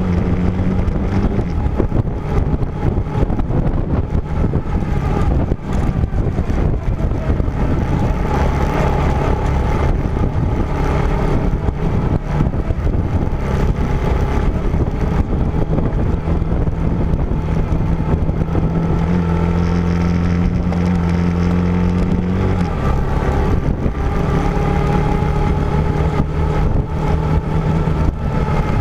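Vehicle engine running under changing load while driving over rough off-road terrain, its note rising and falling with the throttle, climbing about two-thirds through and dropping suddenly soon after. Frequent knocks and rattles from the bumpy ride are heard throughout.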